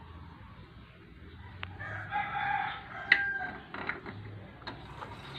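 A rooster crows once, about two seconds in, for about a second. Just after it comes a sharp knock, the loudest sound, with a few lighter clicks of parts and tools being handled on a tiled floor.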